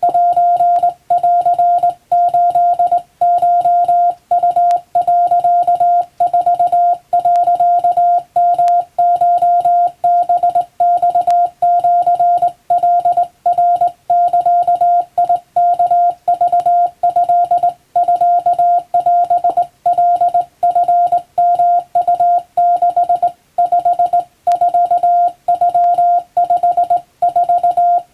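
Hand-keyed Morse code tone sending Japanese wabun code: a single steady tone switched on and off in dots and dashes, with short breaks between characters.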